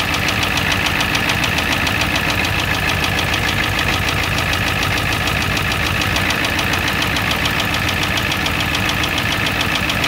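1988 Ford F-250's 7.3 L IDI V8 diesel idling with a steady, rapid knock, heard close up under the hood. The owner takes the knock for an engine fault.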